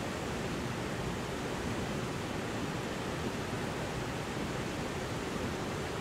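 River water rushing steadily over rocky cascades and small falls: a continuous, even roar of white water.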